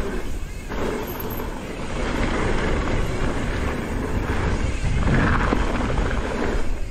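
Wind rushing over the microphone with the rolling noise of a mountain bike descending a trail; a deep, uneven rumble that swells and eases.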